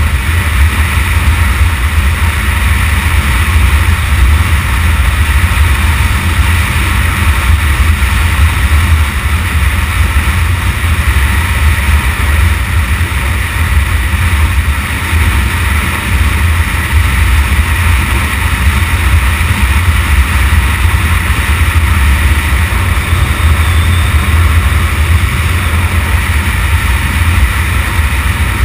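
Motorcycle riding at a steady speed on a gravel road: constant engine and tyre-on-gravel noise under heavy wind buffeting on the camera's microphone.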